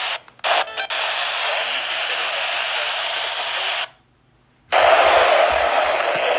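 Steady hiss of static from a NOAA Weather Radio receiver. It cuts out briefly a couple of times near the start, then drops to silence for most of a second about four seconds in before the hiss returns.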